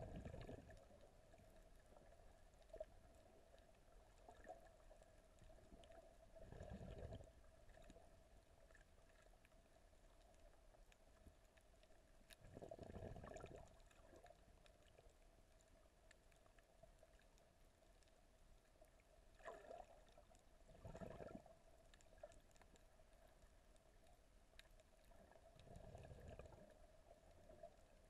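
Near silence of a camera recording underwater: a faint steady hum, with a few soft, low water swooshes spread several seconds apart.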